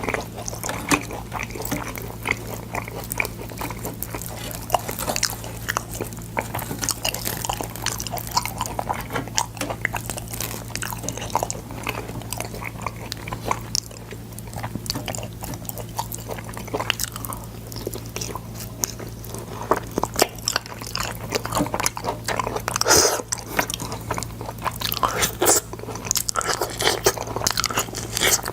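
Close-miked biting and chewing of boiled sword beans: irregular crunchy bites and crackling chews, with a steady low hum underneath.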